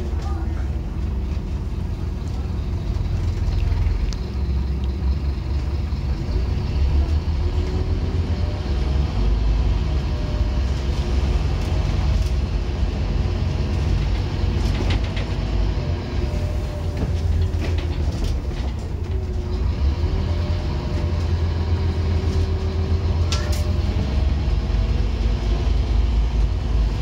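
Scania N230UD OmniCity double-decker bus on the move, heard from the upper deck: the five-cylinder diesel's steady low rumble, with a drivetrain whine that rises and falls as the bus speeds up and slows, and a few knocks and rattles from the body.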